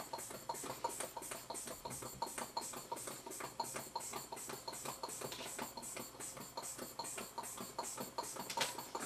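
Hand balloon pump being worked quickly to inflate a long, thin modelling balloon: rapid, even puffs of air, about five a second.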